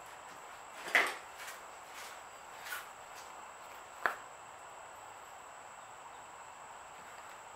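Small plastic clicks and knocks from handling a squeeze bottle of acrylic paint with a flip-top cap: three short clicks, the loudest about a second in and a sharp one about four seconds in, over a faint steady hiss.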